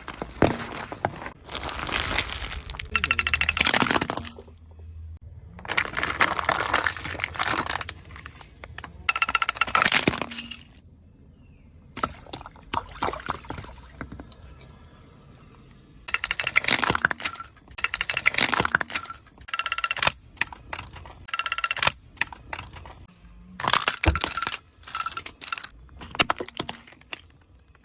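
Objects crackling and crunching as a car tyre rolls over and crushes them, in a series of bursts of sharp cracks and snaps with short quieter gaps between.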